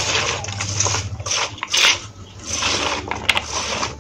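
A hand tossing and rubbing salted raw banana-stem and potato sticks in a stainless steel colander: a wet, irregular rustling and crunching of the pieces, with a short sharp click about three seconds in.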